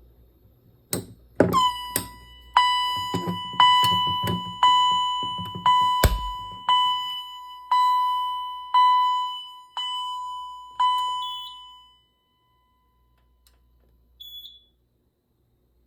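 Fire alarm signal driven by an Edwards EST1 conventional panel: a ringing, bell-like tone struck about once a second, each stroke dying away, with a few quicker strokes at the start. It stops about 12 seconds in and is followed by one short high beep from the panel.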